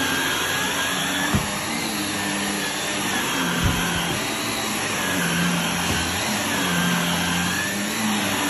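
Shark NV380 Navigator Lift-Away upright vacuum running on carpet, its motor hum wavering in pitch as it is pushed back and forth. A couple of short knocks come in the first half.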